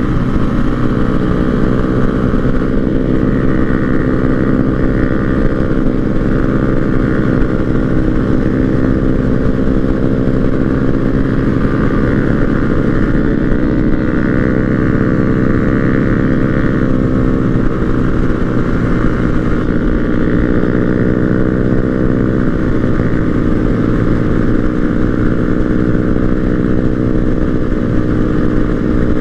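Small-bore motorcycle engine running steadily at cruising speed, its pitch shifting only slightly with the throttle, over a low rumble of wind.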